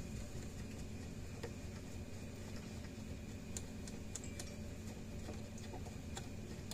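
Light, irregular clicks and ticks as fingers screw a terminal nut onto a threaded output post of a Gallagher BEV2 fence energizer, the threads freshly oiled so the nut runs on all the way. A steady low hum sits underneath.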